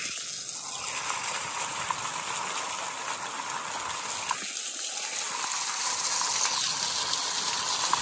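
Narrow waterfall splashing down a cliff face, a steady hiss of falling water and spray heard from right at its foot.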